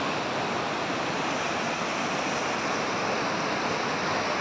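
A river in flood, its muddy torrent rushing steadily.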